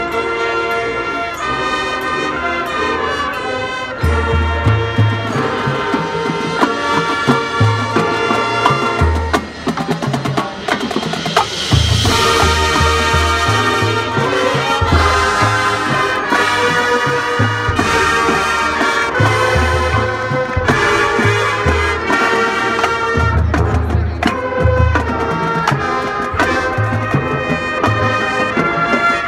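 High school marching band playing a jazz arrangement: brass carrying the melody over a drum line, with low bass drum hits coming in about four seconds in and a cymbal crash around the middle.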